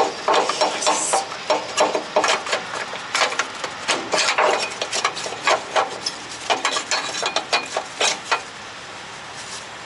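Irregular metallic clanks and knocks, several a second, from tools and metal parts as a new rubber cab mount cushion is forced into place under the lifted cab of a Kenworth W900. The knocking dies down after about eight seconds.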